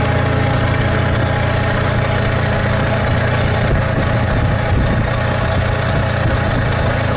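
Truck engine running steadily while driving, with road noise.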